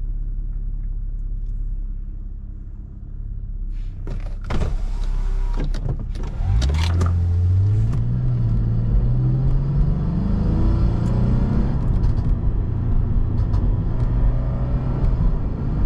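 Lexus IS250's V6 with an ECU tune and its exhaust valves closed, heard from inside the cabin: a low cruising rumble, a few sharp pops about four to seven seconds in, then a hard pull with the engine note rising steadily for several seconds and holding high.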